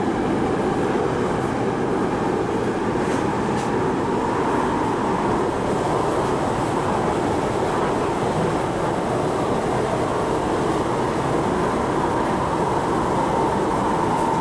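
Steady running noise heard inside an MTR IKK-train (SP1900 electric multiple unit) car travelling through a tunnel. A continuous rumble carries a hum that rises slightly in pitch a few seconds in, then holds steady.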